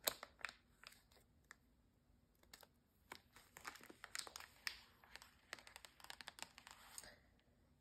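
Quiet crinkling of a clear plastic bag of sugared gummy bears being handled and set down, with scattered light clicks and taps; the clicks come thickest from about three to seven seconds in.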